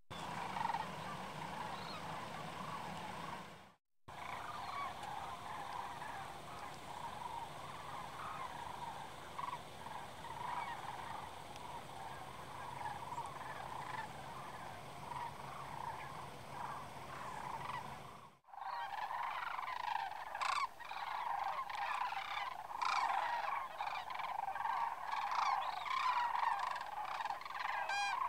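A flock of sandhill cranes calling in flight, many overlapping calls at once. The sound drops out twice, briefly, about 4 and 18 seconds in, and is louder and busier after the second break.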